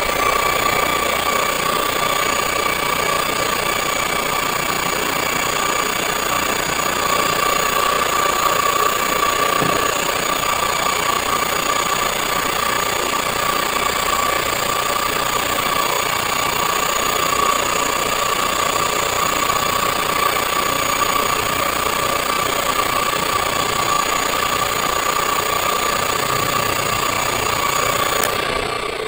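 Car alternator converted to a 36-volt brushless motor, driven by an e-bike BLDC controller and running steadily at constant speed, with a steady whine over its running noise. Near the end the high whine cuts off and the motor begins to run down.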